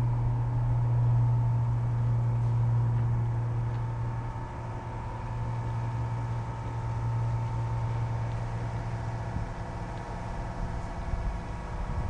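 Tractor diesel engine running steadily with a faint whine above it; the low hum eases off about nine seconds in.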